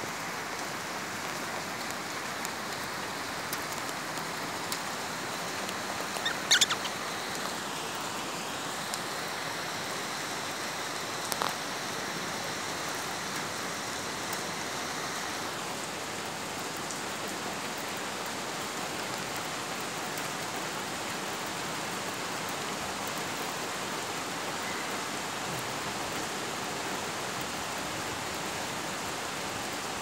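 Steady rain falling, an even hiss, with a few brief sharp sounds about six and eleven seconds in.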